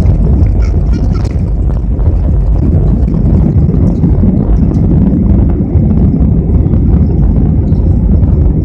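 Airbus A320 jet engines at takeoff thrust during the takeoff roll, heard from inside the cabin: a loud, steady, low roar mixed with runway rumble.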